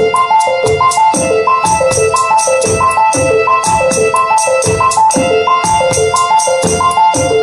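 Teenage Engineering OP-1 synthesizer playing a looped electronic sequence: a repeating run of short synth notes stepping downward, over a fast, even tick of tambourine- or hi-hat-like percussion, with a steady high tone held underneath.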